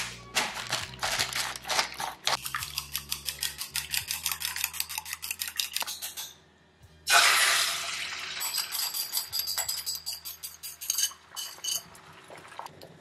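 Metal chopsticks beating eggs in a ceramic bowl, a fast run of sharp clicks against the bowl. About seven seconds in, the beaten egg hits a hot nonstick pan and sizzles loudly, then keeps sizzling while the chopsticks tap and scrape the bowl to get the last of the egg out.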